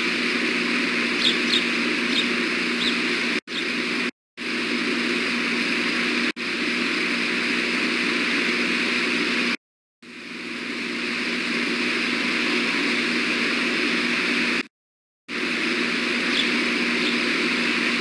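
Steady hum and hiss of road traffic picked up by an osprey nest cam's microphone. The sound cuts out to silence several times, for a fraction of a second up to about half a second. A few faint, short high chirps come near the start and near the end.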